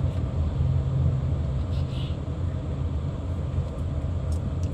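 Car driving along at a steady pace: a continuous low rumble of engine and road noise, with a few faint clicks.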